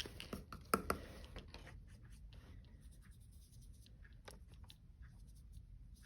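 Watercolor paintbrush dabbing in the paint and brushing on paper: faint scratchy strokes, with a couple of light sharp taps just under a second in.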